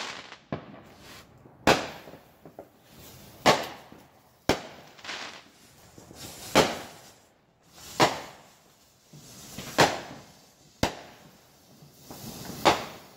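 Consumer aerial fireworks cake firing shot after shot: about nine sharp bangs, roughly one every one and a half seconds, with crackling and hiss between the reports.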